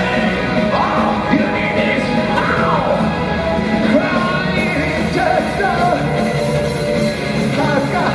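Heavy metal band playing live: a male singer's high, yelled vocal lines glide over electric guitar, bass and drums.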